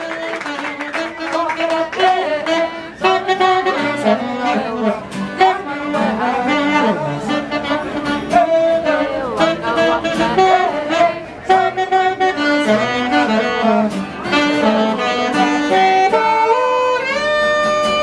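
A live band, with a saxophone and a guitar, playing an upbeat tune in quick runs of notes. Near the end there are a few long, held notes.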